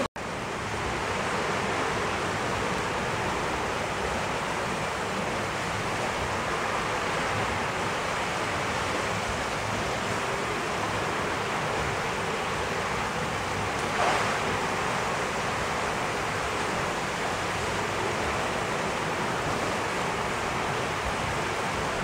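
Steady rushing, splashing water from a churned, aerated koi pond, with one short knock about 14 seconds in.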